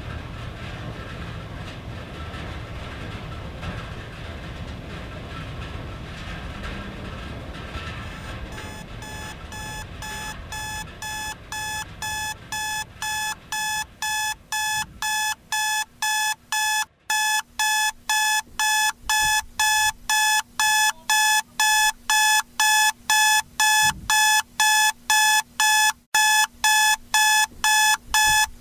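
Electronic alarm-clock beeping, about two beeps a second, fading in from about eight seconds in and growing steadily louder: the wake-up alarm at the end of a timed nap. Underneath, the steady rain-on-tin-roof noise fades out over the first dozen seconds.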